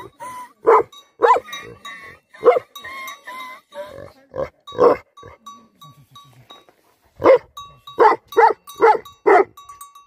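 Livestock guardian dog barking repeatedly in short bursts, with a pause of a couple of seconds in the middle and a quick run of barks near the end.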